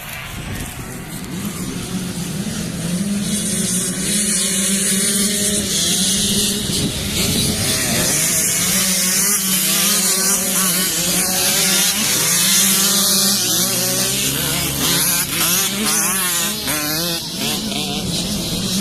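Several enduro dirt bike engines running and revving, growing louder over the first few seconds, with pitch rising and falling repeatedly in the second half as riders work the throttle.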